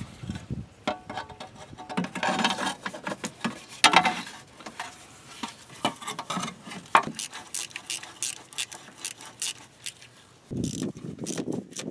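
Irregular metallic clicks, clinks and knocks of hand tools and parts being handled during car repair work.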